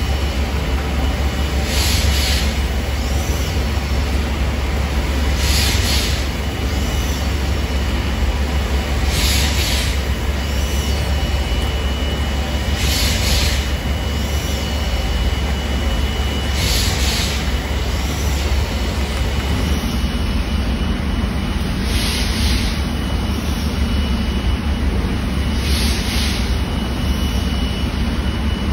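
Steam engine of a century-old paddlewheel steamer running: a steady deep rumble, with a hiss that swells and fades about every four seconds.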